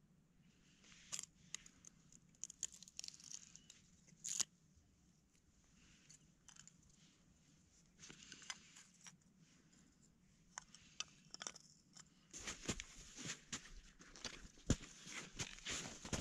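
Knife blade shaving a wooden stick, a series of scraping strokes and clicks with pauses between them. Near the end, denser rustling and crackling of handled material.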